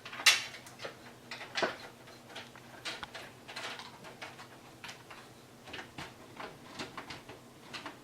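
Scattered clicks, taps and scrapes of computer case parts and cables being handled, with a sharper knock about a quarter second in and another about a second and a half in.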